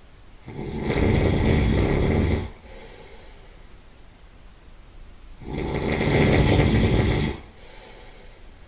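Loud nasal snoring: two long snores about five seconds apart, each lasting about two seconds, with quiet breathing between them.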